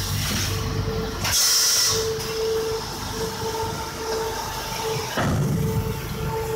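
Pulp-moulding egg tray machine running, with its chain conveyor carrying the wet trays: a steady mechanical rumble and hum. A loud hiss of air comes about a second and a half in, and the low rumble grows louder about five seconds in.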